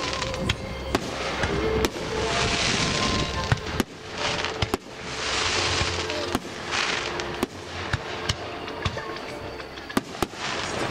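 Fireworks display going off: many sharp bangs in quick, irregular succession, with loud swells of crackle and hiss lasting about a second each between them.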